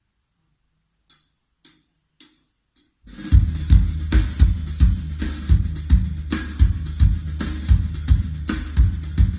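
Recorded music playing through Onkyo D-N7X speakers: four cymbal count-in ticks about two a second, then about three seconds in a full drum kit with a heavy kick drum comes in.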